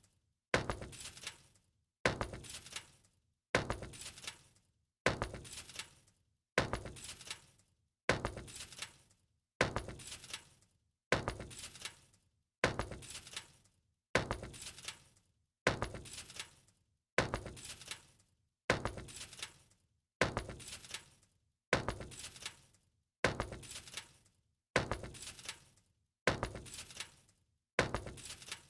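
A sharp crash-like hit with a jangling, glassy decay, repeated identically about every second and a half as a steady loop.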